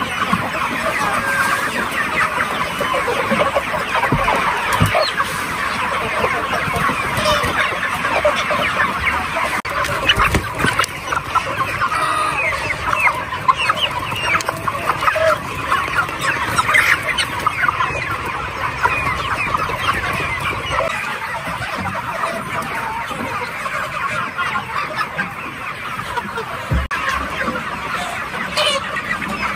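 A large flock of 40-day-old chickens calling all at once, a steady chorus of many short overlapping calls, as the birds crowd around the feeders to eat.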